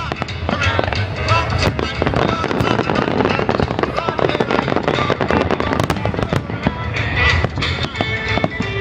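Fireworks going off in rapid succession: a dense, continuous run of crackling pops and bangs.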